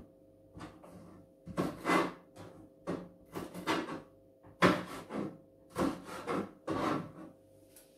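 Hands working at a kitchen sink: a string of short, irregular rubbing and knocking sounds, with a faint steady hum underneath.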